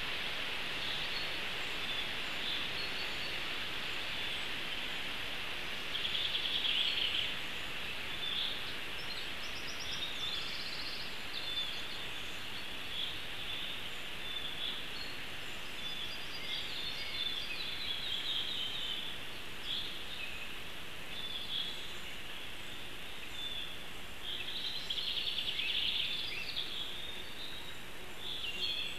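Small forest birds chirping and calling again and again over a steady hiss, with two louder, rougher stretches of calling about six seconds in and near the end.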